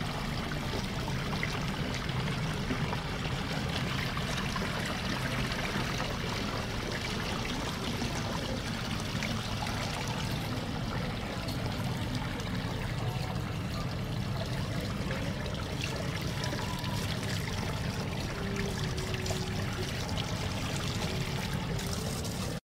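Water pouring and trickling steadily over a decorative rock fountain; it cuts off suddenly at the end.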